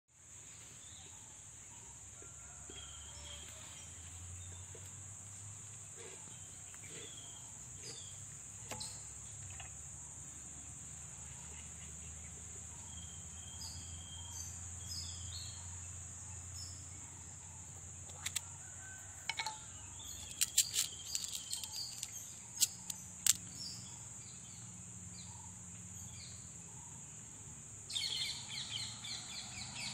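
Birds chirping and calling here and there over a steady high-pitched hiss and a low hum. Several sharp clicks and knocks come in a cluster about two-thirds of the way in. A louder burst of busy chirping starts near the end.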